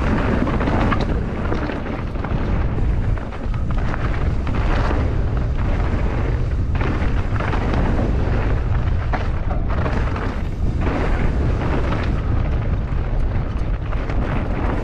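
Mountain bike riding fast down a rocky trail: a steady low rumble of wind buffeting the helmet-mounted camera's microphone, broken by frequent short knocks and rattles from the bike over the ground.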